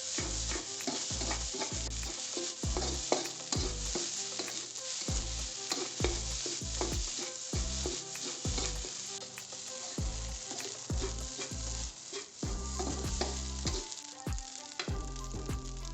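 Egg fried rice sizzling in a hot pan as it is stir-fried, a steady frying hiss with a spatula knocking and scraping against the pan one or two times a second.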